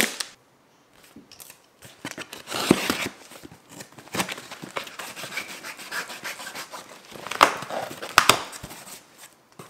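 A sharp knock at the very start, then a knife blade scraping and slitting heavy-duty packing tape along a cardboard box, with the cardboard rubbing and crinkling and a few sharp clicks and taps.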